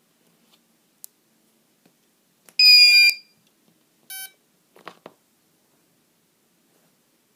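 ESC power-up beeps sounded through a brushless outrunner motor's windings: a loud half-second run of high stepped tones, then one lower, shorter beep about a second later. This is the SimonK-flashed ESC's start-up tune followed by its arming beep, meaning it is powered and ready for throttle. A few soft clicks follow.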